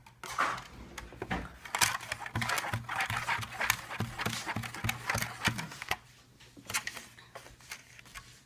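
Spoon stirring and scraping a wet toothpaste-and-sugar slime mixture in a small container, in quick rhythmic strokes that ease off near the end.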